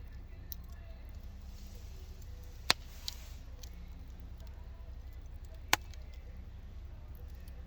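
Wood fire in a wood-fired oven burning with a steady low rumble, and two sharp pops about three seconds apart as the wood crackles.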